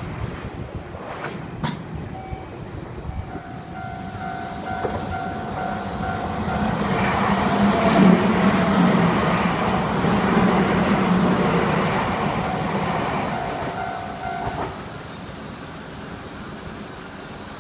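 Japanese railroad-crossing warning bell clanging in a steady repeating beat while a train passes. The train's rumble swells to its loudest about halfway through, drowning the bell, then fades away as the bell carries on.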